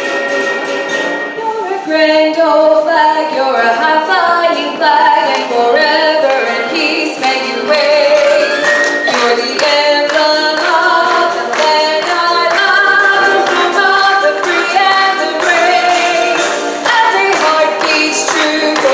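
Music: a song sung by voices, with a regular beat.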